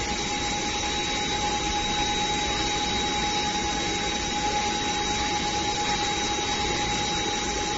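Steady machinery noise from bottle-blowing equipment running: an even rushing with a constant whine over it, no change in pace.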